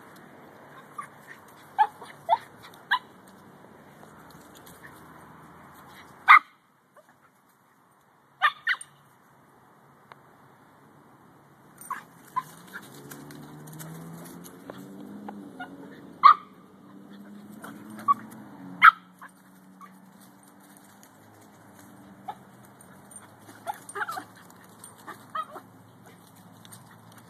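Dogs playing, giving short, sharp yips and barks at irregular intervals.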